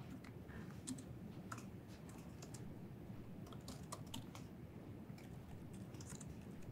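Faint typing on a laptop keyboard: irregular, scattered key clicks.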